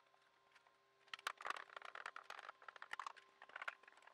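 Faint clicking and rattling of a screwdriver and small metal parts as screws are taken out of a miter saw's table insert. A busy run of clicks lasts about two seconds, starting about a second in, with a few more clicks near the end.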